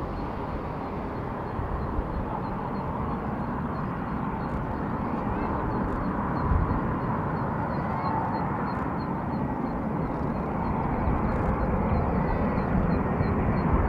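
Boeing 787-9 airliner's Rolls-Royce Trent 1000 jet engines heard on final approach, a steady rumble growing slowly louder as the plane nears.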